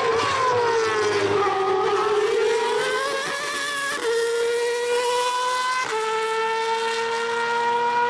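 2015 Formula One car's 1.6-litre turbocharged V6 hybrid engine under acceleration. The pitch sags, then climbs, with quick upshifts about four and six seconds in, each a sudden small drop in pitch before it rises again.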